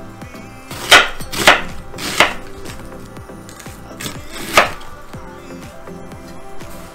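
Chef's knife slicing through an onion onto a wooden cutting board: three sharp cuts about a second in, then two more about four seconds in.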